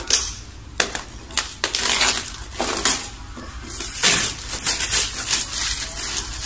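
Clear plastic shrink-wrap being peeled and pulled off an iPad Pro box, crinkling in quick irregular crackles.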